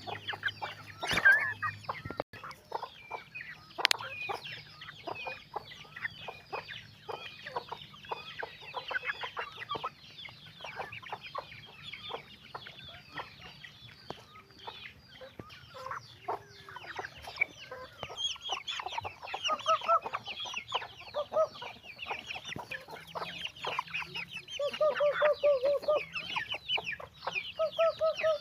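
A flock of chickens clucking and calling continuously with many short overlapping calls, a few longer calls near the end, and a sharp knock about a second in.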